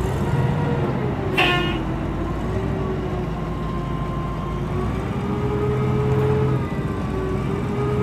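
Large forklift's engine running steadily, its pitch rising and falling as it manoeuvres. A short, high toot sounds about one and a half seconds in.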